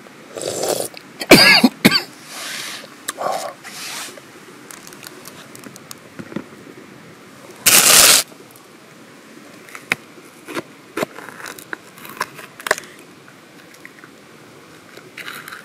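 Hands handling green peppers on a wooden cutting board: rustling and scraping in the first few seconds, one short loud noisy burst about eight seconds in, then light crisp clicks and snaps as a pepper is pulled apart by hand.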